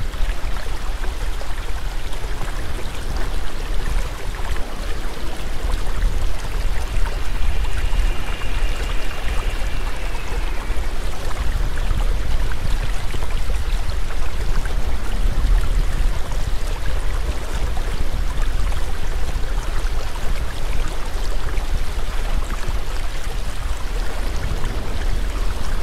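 Steady rushing water like a stream, with a deep rumble underneath. A faint high thin tone sounds for a few seconds, from about seven seconds in.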